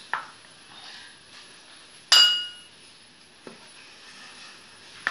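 Ice cream scoop scraping through frozen coconut ice cream in a plastic tub, in short strokes. One loud ringing clink about two seconds in, the scoop knocking against a glass bowl.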